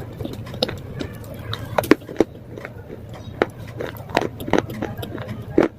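Crunching of brittle slate being bitten and chewed: a series of sharp, irregular cracks and snaps, the loudest about two seconds in and near the end.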